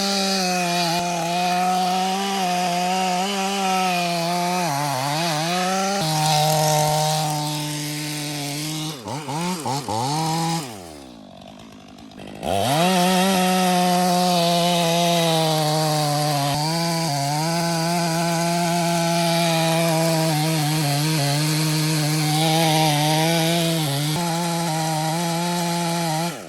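Gas chainsaw running at full throttle, cutting through very hard Australian pine wood. About nine seconds in it is blipped a few times and drops to idle, then is opened back up a couple of seconds later and cuts on.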